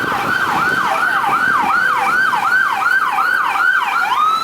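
Emergency vehicle's electronic siren on yelp, sweeping up and down about three times a second. Near the end it switches to a long, slowly rising tone.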